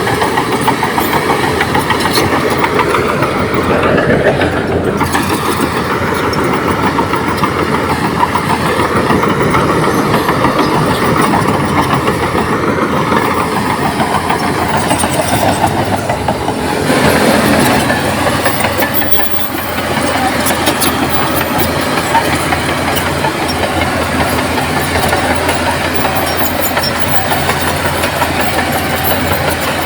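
Komatsu D58P crawler bulldozer's diesel engine running steadily at work, with a dense fast rattle over it. The engine swells briefly a little past halfway, then dips and settles back.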